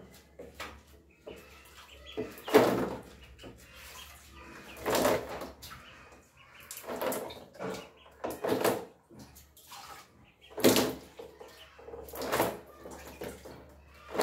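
Ducklings splashing and scrabbling in a shallow plastic tub of water: about seven short bursts of splashing a second or two apart, with faint peeping between.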